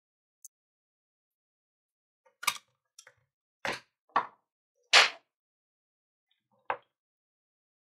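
Handling noise from reassembling a Bosch angle grinder: short separate clicks and knocks as the parts and the plastic housing are moved and set in place, about six of them, the loudest about five seconds in.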